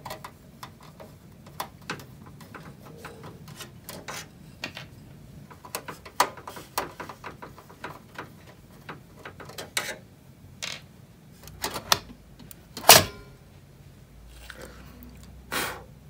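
Scattered metal clicks, rattles and knocks of a graphics card being unscrewed from the expansion-slot bracket of a desktop PC case and pulled out, with a sharp knock about thirteen seconds in and another near the end.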